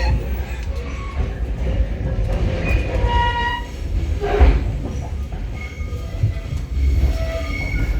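Passenger train rumbling along the rails, heard from inside the carriage, with a brief high-pitched wheel squeal about three seconds in.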